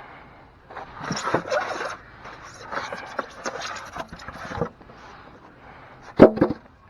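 Scraping and handling noises, then a single sharp metal clank with a brief ring about six seconds in.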